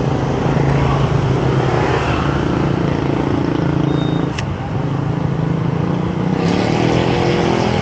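Motor scooter engines running close by on a street over background traffic noise, one revving up with a rising pitch near the end.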